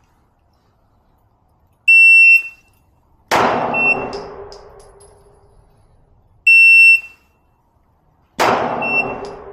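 SG Timer 2 shot timer giving a half-second high start beep, then about a second and a half later a single 9mm shot from a Glock 19X pistol with a long ringing decay. The beep and shot repeat about five seconds later, the second shot coming about two seconds after its beep.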